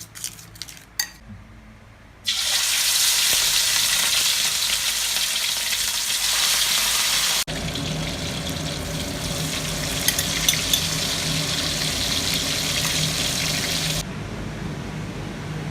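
A few utensil clinks, then chicken wings deep-frying in hot oil: a loud, steady sizzle that starts about two seconds in. It cuts abruptly to another stretch of sizzling midway, which becomes quieter near the end.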